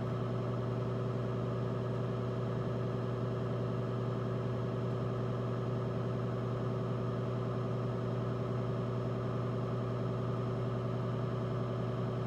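Electric potter's wheel motor running at a steady speed: a constant low hum that does not change.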